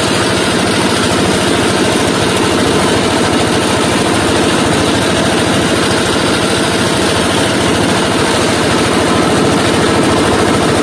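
A boat engine running steadily and loudly at close range, with a fast, even pulse.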